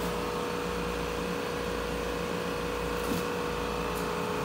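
2008 Anderson 5x10 CNC router running: a steady machine hum with one held tone. Two faint ticks come about three and four seconds in.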